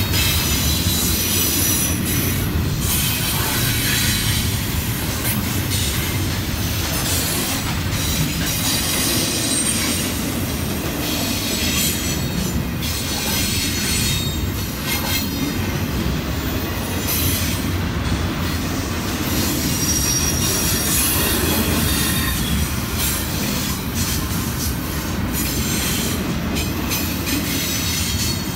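A long train rolling past, with a steady rumble of wheels on rails and thin high-pitched wheel squeal over it.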